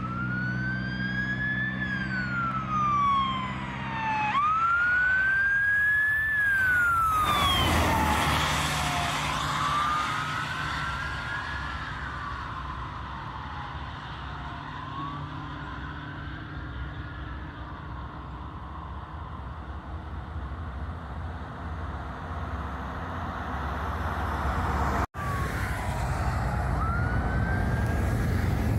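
Emergency vehicle siren wailing, rising and falling every two seconds or so, loudest as the vehicle passes at speed about eight seconds in with a rush of engine and tyre noise, then fading away. Near the end a second siren starts up as the next vehicle approaches.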